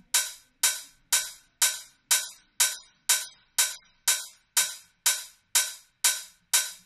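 A 909 drum-machine open hi-hat sample repeating about twice a second, each hit ringing briefly and dying away. It is played through the Xfer Dimension Expander chorus, fully wet with its size turned up, which spreads the hat wide in stereo.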